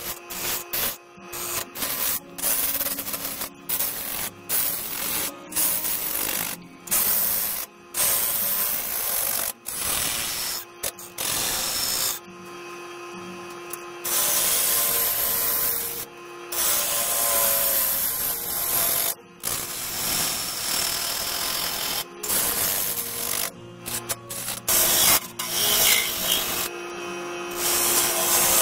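Bowl gouge cutting the outside of a spinning sapele bowl blank on a wood lathe: a dry, hissing scrape of wood being shaved, which stops and starts many times, over the lathe motor's steady hum.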